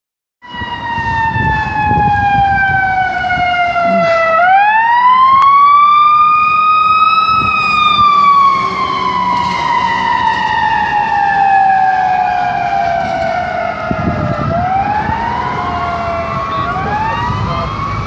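Fire engine siren on a slow wail: the pitch climbs quickly, then falls away slowly over several seconds, over and over. Near the end a second siren's rising sweep overlaps it, with engine and traffic rumble underneath.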